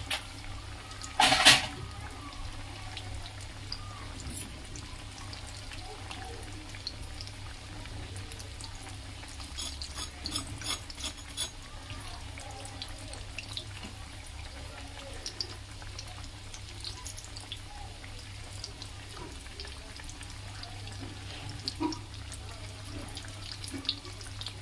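Potato cutlets deep-frying in hot oil in a kadai: a steady bubbling sizzle with scattered crackles. A brief loud burst of noise about a second and a half in, and a run of sharp ticks around ten seconds in.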